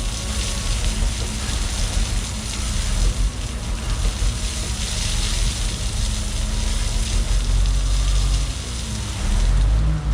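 John Deere 450H bulldozer's diesel engine running under load, with a steady hiss of rain over it; the engine gets louder near the end.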